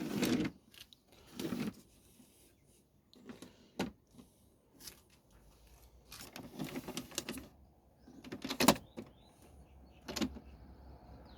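Handling noises on wooden toolbox doors: scattered knocks, scrapes and rustling at uneven intervals, the loudest a sharp knock about nine seconds in.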